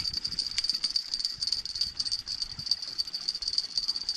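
A steady high-pitched insect drone, pulsing rapidly, with a faint low rumble underneath.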